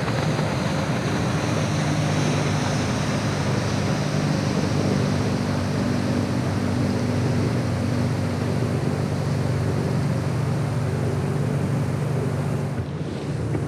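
A powerboat engine running steadily, a low hum with a hiss of wind and water over it.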